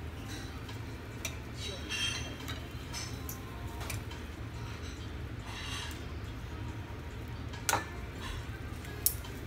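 Utensils and dishes clinking and tapping at a meal table, a few scattered clicks with one sharper clack near the end, over a steady low hum.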